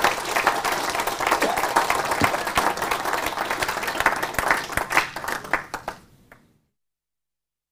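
Audience applauding, many hands clapping together, thinning out and fading away about six seconds in.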